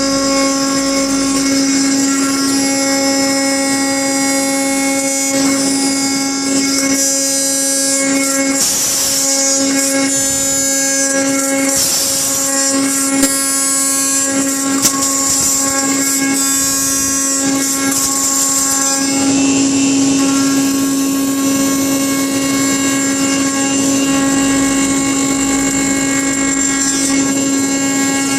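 CNC router's 4.5 kW spindle turning a shop-made indexable-insert cutter at 16,500 rpm: a loud, steady whine with many overtones. From about nine seconds to about nineteen seconds a rougher rushing noise joins it as the cutter mills into pine, with two faint ticks partway through.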